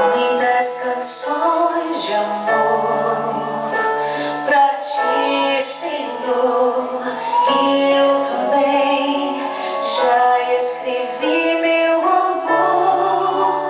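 A song with a female lead voice singing over instrumental backing and a bass line.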